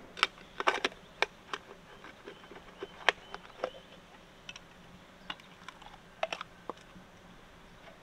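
Irregular sharp clicks and taps of a knife working against a freshwater mussel's shell as it is pried open, with a quick run of clicks in the first second and scattered single ones after.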